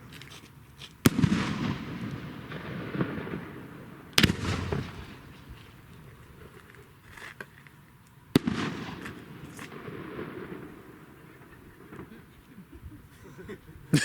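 Fireworks going off: three loud sharp bangs a few seconds apart, each trailing off over a couple of seconds, with a fourth bang at the very end.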